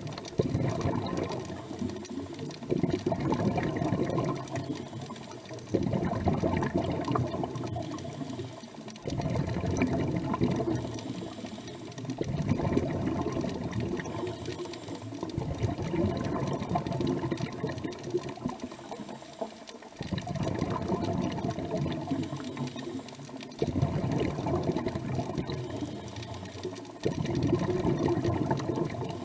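A scuba diver breathing through a regulator, heard underwater: exhaled air bubbling out with a gurgle, one breath about every three seconds, each starting abruptly and fading away.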